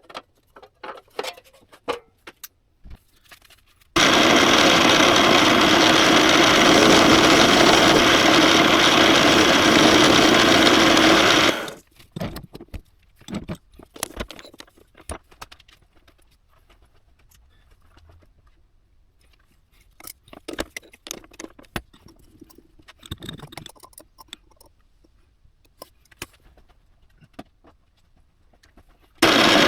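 A power tool runs steadily for about eight seconds, with scattered taps and clinks of metal parts being handled before and after it.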